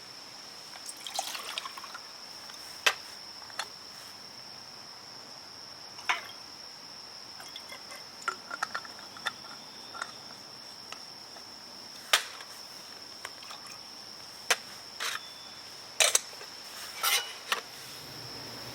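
A steady high-pitched insect drone, with a dozen or so sharp clicks and taps scattered over it and a few short soft rustles.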